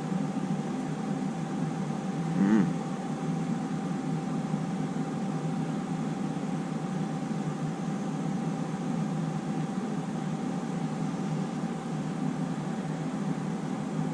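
A steady mechanical hum with a constant thin whine, unchanging in level.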